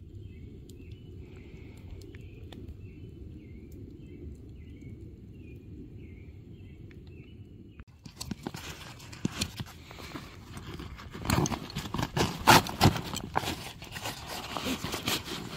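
A steady low background with a short high call repeating about every two-thirds of a second, then from about halfway on, loud rustling and knocking as a hand rummages in a nylon backpack and pulls out a stuffed sleeping bag.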